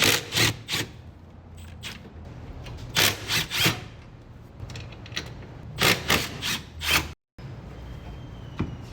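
Hand tools scraping and rasping in short strokes, in three quick clusters, as the truck's brake line fittings and proportioning valve are worked off.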